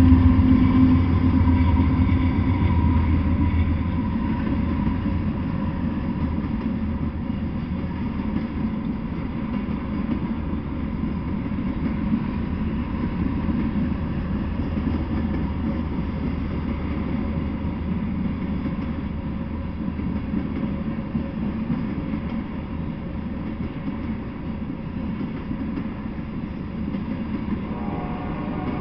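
Freight train of tank cars rolling past, its wheels running on the rails in a steady rumble that is loudest in the first few seconds and eases a little after that.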